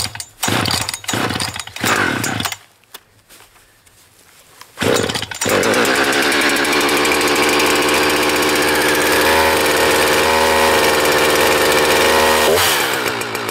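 Cold start of a Husqvarna 359 59 cc two-stroke chainsaw by pull cord: a few quick pulls, then the engine catches about five seconds in and runs steadily. Its speed and level drop a little near the end.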